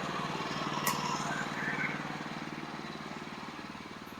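Portable sawmill's small gasoline engine running at a steady speed and gradually growing quieter, with one sharp click about a second in.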